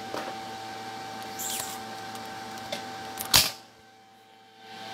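Handling noise as the recording phone is picked up and moved: a few light knocks and one sharp knock about three and a half seconds in, over a steady hum.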